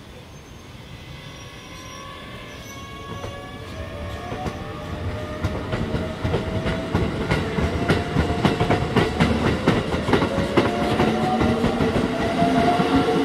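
Keikyu electric train accelerating away from a stop. The whine of its GTO VVVF inverter climbs steadily in pitch in several tones, while the wheel clatter over the rail joints grows quicker and louder.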